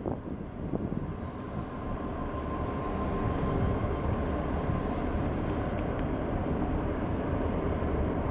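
Cruise ferry Silja Serenade passing close by: a steady low rumble from its engines and propellers.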